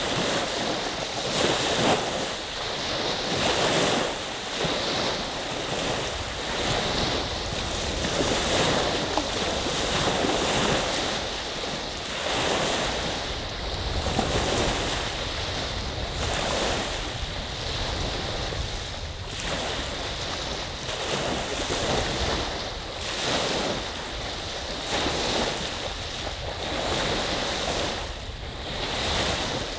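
Small waves of Saginaw Bay washing onto the shore one after another, swelling and easing about every two seconds.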